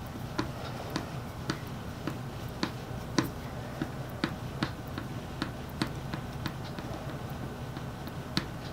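Light, sharp clicks and taps, about two a second at uneven spacing, over a steady low hum.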